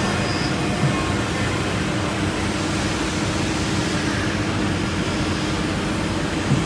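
CNC router spindle running steadily while milling grooves into a wooden panel: a steady hum over a rushing noise, with a brief low thump about a second in and another near the end.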